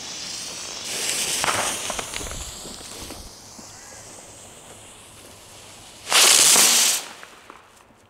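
Small Pyroland firework items going off: a loud hiss with high whistles falling in pitch that slowly fades, then about six seconds in a much louder rush of noise lasting about a second.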